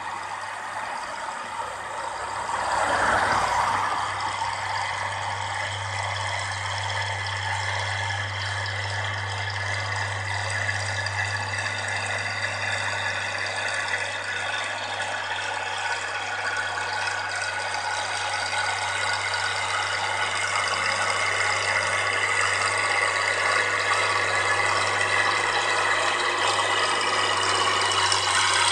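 Fiat 1300DT Super tractor's six-cylinder OM diesel engine working under load while ploughing with a reversible two-furrow plough, a steady drone that grows louder as the tractor draws nearer. A brief swell of noise about three seconds in.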